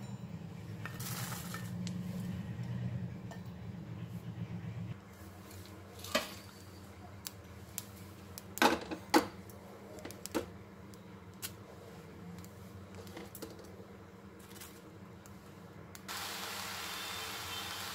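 Kitchen clatter: a few sharp clinks and knocks against a cooking pot as ingredients are put in, the loudest two close together about nine seconds in. A low hum fills the first five seconds, and a steady hiss starts near the end.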